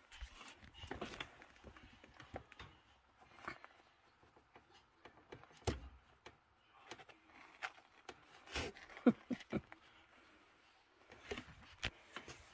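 Faint, scattered rustles and soft taps as a hand handles a sleeping two-week-old Pomeranian puppy on a fleece blanket, with a short cluster of sharper taps about nine seconds in.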